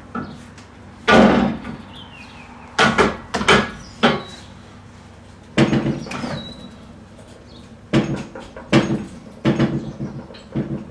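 A dozen or so irregular metal clanks and knocks on a steel gym-equipment frame, some with a short ring, as a freshly TIG-welded repair is stressed to check that it holds.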